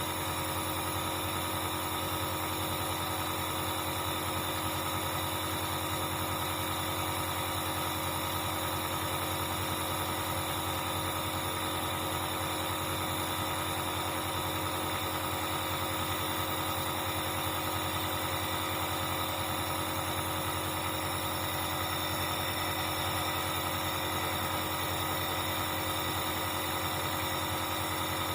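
Dr Trust 401 compressor nebulizer's air compressor running steadily: a constant, even hum with several steady tones.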